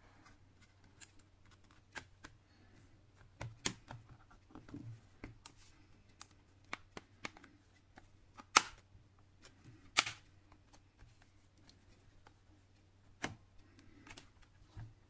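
Plastic snap clips of a tablet's back cover clicking into place as the cover is pressed shut around its edges: a string of irregular small clicks and taps, with two sharp louder snaps a little past the middle. A low steady hum runs underneath.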